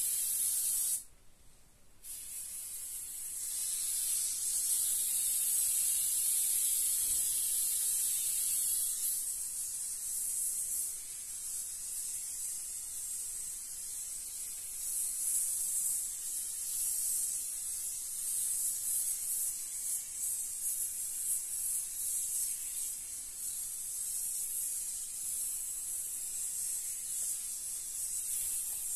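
Foam gun dispensing foam adhesive from its can: a steady high hiss that cuts out for about a second near the start, then runs on as the beads are laid.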